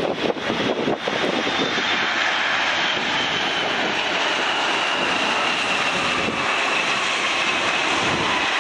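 Jet engines of a KLM Boeing 787 Dreamliner (GEnx turbofans) as the airliner rolls along the runway past the listener: a loud, steady rush with a high whine that slowly falls in pitch as it goes by.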